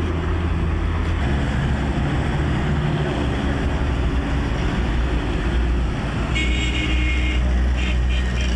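Road traffic: a steady low rumble of engines and tyres. A vehicle horn sounds for about a second near the end, followed by a short toot.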